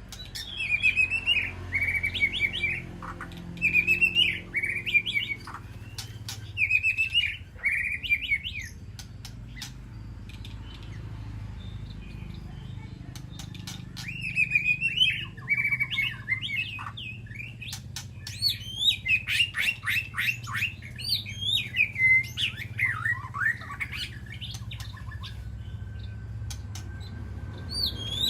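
White-rumped shama singing: bursts of loud, varied whistled phrases, a pause of several seconds in the middle, then a fast run of falling notes. Sharp clicks and a low steady hum sit beneath.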